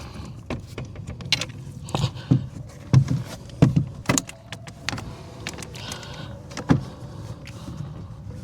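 Irregular clicks, knocks and rustles of a car's plastic door trim panel and its wiring being handled and shifted by hand.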